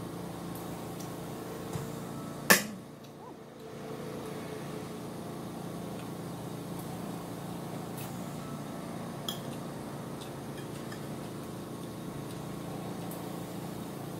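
A metal fork clinks sharply once on a ceramic bowl of pasta about two and a half seconds in, with a few faint clicks later, over a steady low hum in the room.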